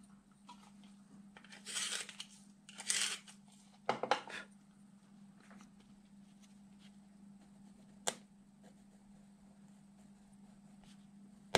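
Watercolour pencil scratching on drawing paper in a few short strokes during the first half, then a single sharp click about eight seconds in. A steady low hum runs underneath.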